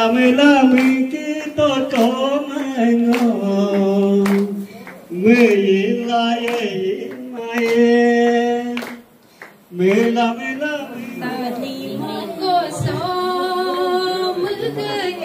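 Solo gospel singing into a microphone, with long held notes. It breaks off about nine seconds in, then a woman starts singing a new song.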